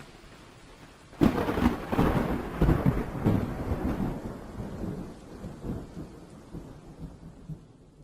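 A thunderclap over a light hiss of rain: a sudden crack about a second in, then a long rumble that slowly fades.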